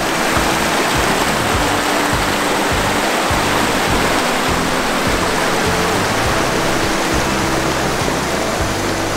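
Small rocky creek rushing and splashing as it spills into a river, a loud steady rush of water, with background music faintly underneath.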